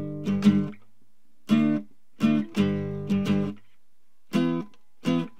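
Acoustic guitar in a folk punk song, playing short, stop-start strummed chords that are each cut off sharply, with brief gaps between them.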